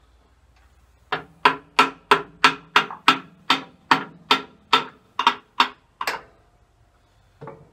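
Hammer blows on metal while working on a tractor's water pump: about fourteen sharp, briefly ringing strikes at roughly three a second, then two lighter taps near the end.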